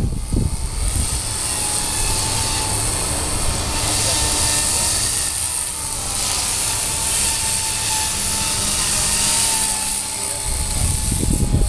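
4F200 radio-controlled model helicopter flying: a steady whine that rises and falls slowly as the rotor speed and distance change, with wind buffeting the microphone as a low rumble.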